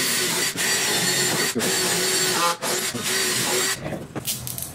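Bosch cordless drill drilling holes through a fibreboard panel, its motor whining steadily in several runs with brief breaks, then stopping near the end.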